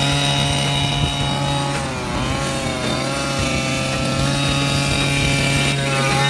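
Losi DBXL 1/5-scale buggy's small two-stroke gas engine running at low speed during break-in, its pitch sagging and picking up again a few times.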